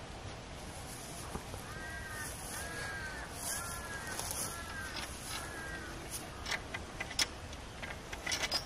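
A crow cawing five times in quick succession, each call arching up and down in pitch, over a steady outdoor hiss. Near the end come several sharp clicks and taps.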